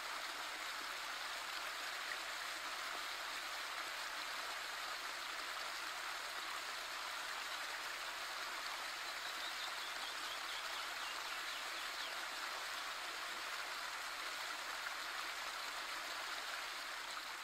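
Running water: a stream spilling over a small stone weir, making a steady, even rush of water.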